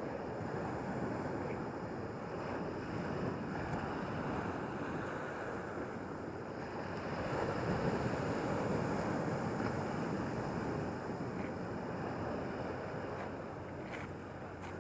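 Sea waves washing onto Qixingtan's pebble shore, a steady surf wash with wind on the microphone; one wave surges louder about halfway through and then falls back.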